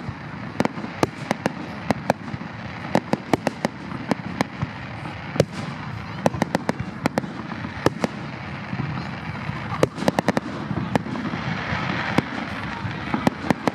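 Fireworks bursting in quick, irregular succession: many sharp bangs and cracks, several a second, over a steady hiss.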